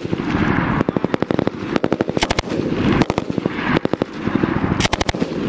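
M249 light machine gun firing a string of short automatic bursts, roughly one burst a second, each a quick rattle of a few rounds at about thirteen shots a second.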